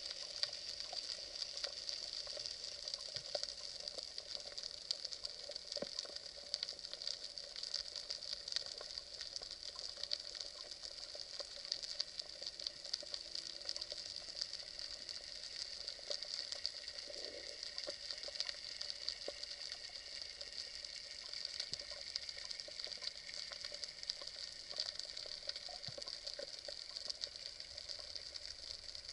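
Underwater sea noise: a steady, dense crackle of fine clicks like frying.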